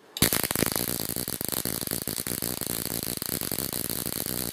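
Ruhmkorff induction coil switched on, its spark arc crackling rapidly and steadily across the gap between two pointed brass electrodes. It starts abruptly a moment in, with the coil's polarity reversed by its reversing switch.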